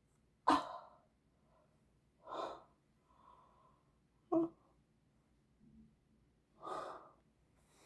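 A person trying to burp: four short throat sounds spaced about two seconds apart, with fainter breaths between them.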